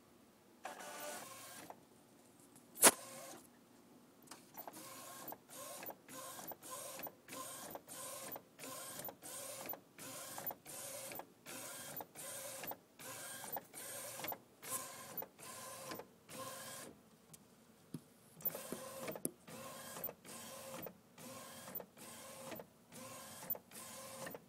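Canon Bubblejet inkjet printer printing: a sharp click about three seconds in. Then the print-head carriage runs back and forth in short, evenly spaced passes, about two a second, with a brief pause about two-thirds of the way through.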